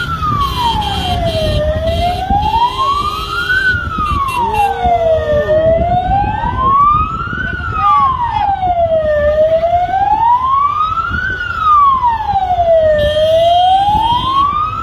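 Emergency vehicle siren sounding a slow wail, its pitch rising and falling smoothly about every four seconds, over a low rumble.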